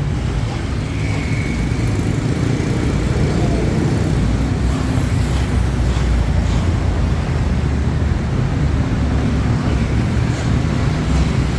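Road traffic running past in a steady, loud rumble of engines and tyres.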